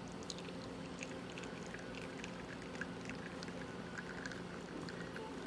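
Espresso dripping and trickling from a La Pavoni lever machine's portafilter into a cup as a shot is pulled, with light scattered patters, over a steady low hum.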